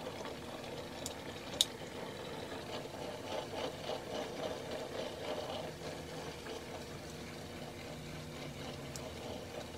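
Portable handheld garment steamer running, a steady buzz with hiss, with one sharp click about a second and a half in.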